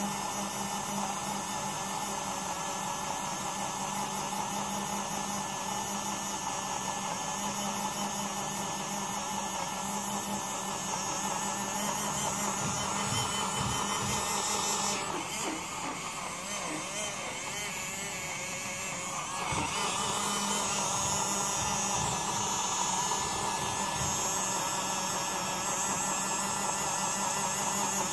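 Small battery-powered portable USB blender's motor running steadily with mandarin juice in the jar, a steady whirring hum. Its tone changes for a few seconds about halfway through.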